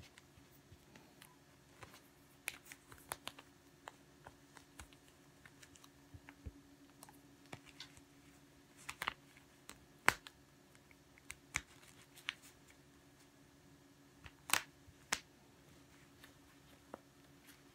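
Hands pinching and twisting a shibori-dyed obiage (kimono sash scarf) into a flower: scattered, irregular soft clicks and rustles of fingers on the crinkled fabric, a few sharper ones in the middle and near the end, over a faint steady low hum.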